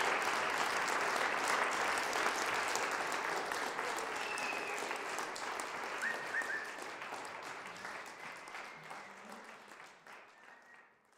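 Audience applauding, the clapping gradually fading out.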